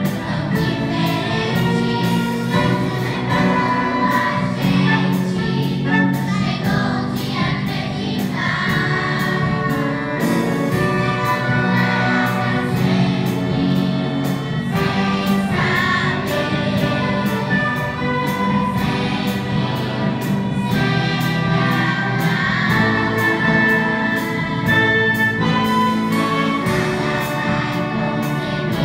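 Youth choir singing with a string orchestra of violins, cellos and double bass, backed by drums and guitar, over a steady beat.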